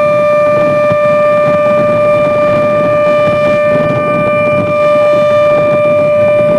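Civil defence siren sounding one loud, steady held tone, set off as a drill rather than a real warning.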